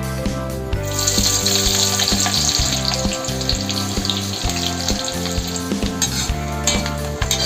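Thin-sliced onions frying in hot oil, a steady sizzle that starts about a second in and dies down near the end, over background music.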